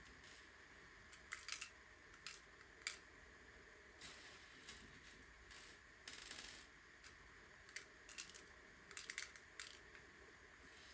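Faint, scattered small clicks of plastic LEGO pieces being handled and pressed together, with a brief rustle about six seconds in, over a quiet steady hiss.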